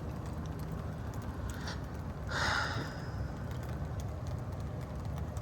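A short breathy sigh, the loudest sound, about two seconds in, over a steady low background rumble.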